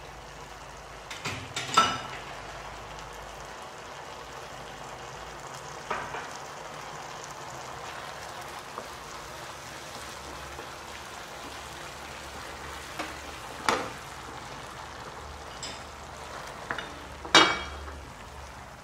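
Prawn gravy cooking in a nonstick frying pan with a steady sizzle. A wooden spatula stirs and knocks against the pan now and then, loudest about two seconds in and again near the end.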